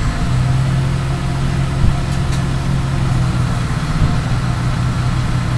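Hot air rework station blowing with a steady hum while it heats a phone CPU at about 370 °C to reflow the solder balls beneath it.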